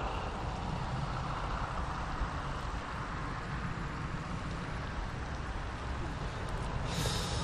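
Steady outdoor background rumble and hiss, with a short burst of noise about seven seconds in.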